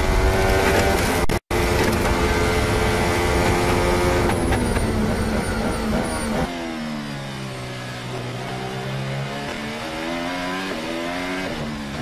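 Onboard sound of a Formula One car's turbocharged V6 hybrid engine at full throttle, holding a high steady note with a momentary dropout, then falling in pitch through downshifts under braking. About halfway through it changes abruptly to another F1 car's onboard, quieter, its engine note stepping down and rising again through gear changes.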